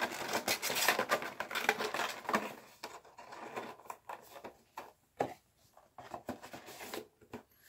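Packaging of a vinyl figure being handled and opened: a dense run of crinkling and clicking for about the first three seconds, then scattered clicks and short rustles.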